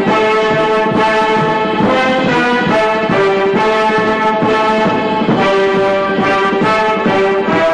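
Orchestral background music, led by brass, playing a melody of held notes.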